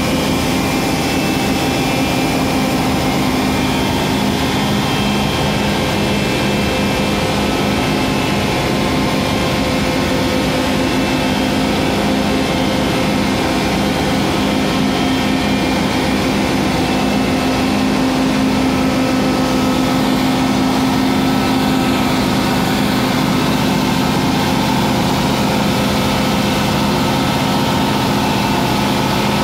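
Rail grinding machine on a road-rail truck running steadily: a constant engine drone with a steady hum and a broad hiss over it, swelling slightly a little past the middle.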